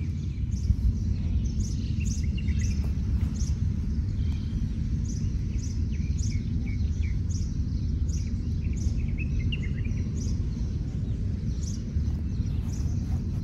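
Small birds chirping repeatedly in short high calls over a steady low rumble.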